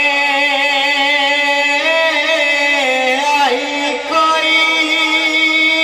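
Male voice singing a naat (Punjabi devotional poem) into a microphone, drawing out long held notes with wavering ornaments; the pitch shifts about two seconds in and again near four seconds.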